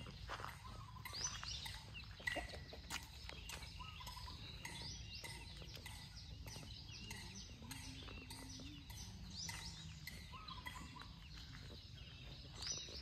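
Birds chirping and twittering outdoors, with many short, quick calls throughout, some sweeping down in pitch, plus a few soft clicks and a low steady rumble underneath.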